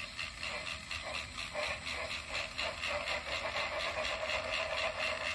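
Battery-powered Talking James toy engine's small motor and gears running, a steady whir with a fast, even clicking.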